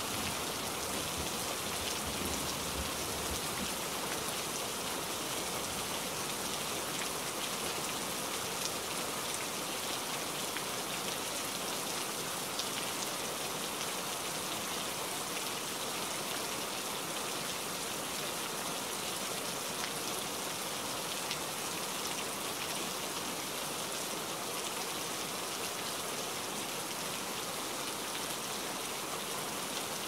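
Steady rain falling on tree foliage, an even hiss of many drops.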